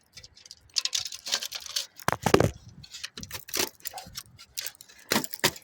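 Scrap aluminum being rummaged through and handled: irregular light clicks, crinkles and rattles, with a louder clatter about two seconds in.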